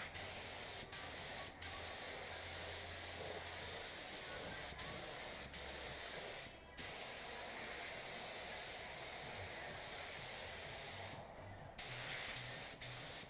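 Air-powered paint spray gun hissing steadily as a coat is sprayed onto a car body. It cuts out briefly about halfway through, and again for about half a second near the end.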